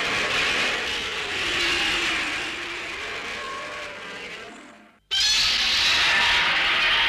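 Godzilla roar sound effect: a long roar with a wavering pitch that fades away, then a second roar cuts in abruptly about five seconds in.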